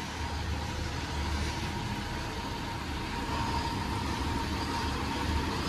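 A motor vehicle running steadily: a continuous low engine rumble under an even hiss of road or tyre noise.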